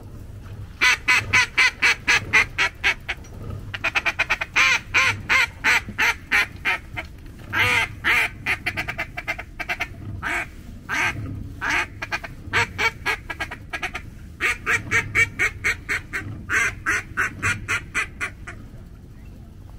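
Duck call blown in runs of rapid quacks, each run a second or two long with short pauses, calling to ducks circling overhead.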